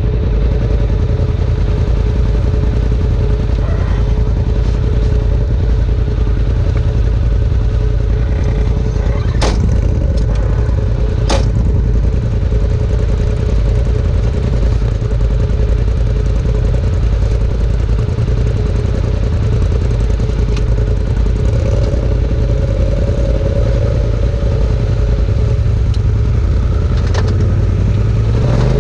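Polaris RZR side-by-side's engine idling steadily, heard from inside the open cab. Two sharp clicks cut through about a third of the way in.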